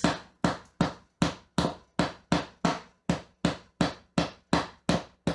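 The end of a screwdriver repeatedly tapping plastic wall anchors into ceiling drywall to seat them flush: a steady run of sharp taps, nearly three a second.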